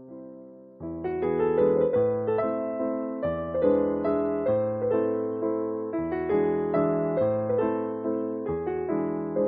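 Background piano music: a slow melody of struck notes, each dying away. A note fades at the start, and a new phrase begins about a second in.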